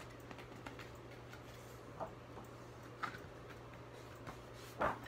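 A few soft clicks of paper being handled, then about a second before the end a louder brief rustle as a picture book's page is taken up to be turned, over a low steady hum.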